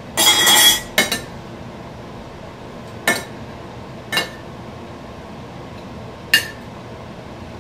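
A metal utensil scraping and clinking against a ceramic plate while food is served: a longer ringing scrape near the start, then four separate short clinks spread through the rest.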